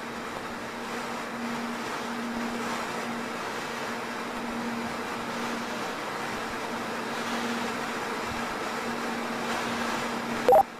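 Steady hiss with a faint low hum running under it, then a brief, loud rising tone just before the end.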